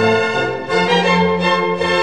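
Background music: bowed strings playing sustained notes that change pitch every second or so.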